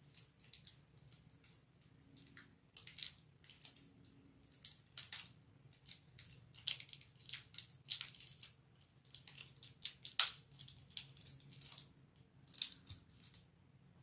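Cellophane wrapping on a box of trading cards crinkling and crackling in quick, irregular bursts as a small blade slits it and fingers work it loose, with the sharpest crackle about ten seconds in.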